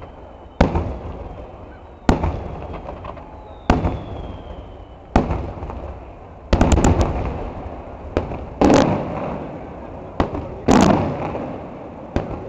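Fireworks shells bursting in a display: about ten sharp bangs, one every second or two, each trailing off in a rolling echo. A quick run of cracks comes about halfway through.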